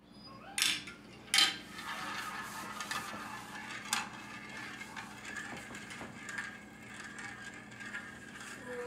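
A marble clicking twice as it drops through a plastic marble-run funnel and chute, then rolling round and round a wide plastic spiral funnel with a steady rattling roll, with another click about four seconds in.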